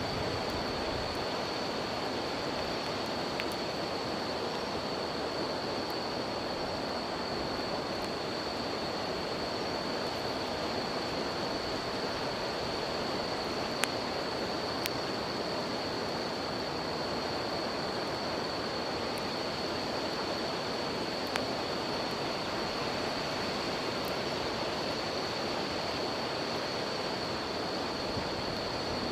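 River water flowing steadily with a continuous high, unbroken insect trill over it, and a few sharp crackles from a wood campfire.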